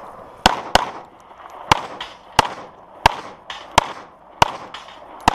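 Handgun shots fired at a steady competition pace: a quick pair about a third of a second apart, then single shots roughly two-thirds of a second apart, eight in all, each sharp crack followed by a short echo.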